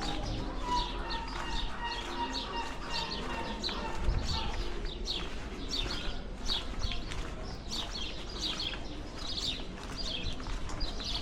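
Small birds chirping busily: a dense, continuous run of short, high chirps.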